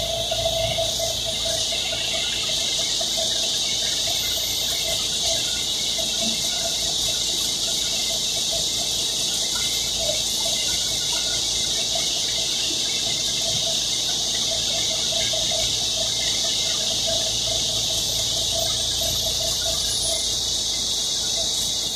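Steady running noise inside a city bus: a high, even hiss with a wavering mid-pitched whine under it.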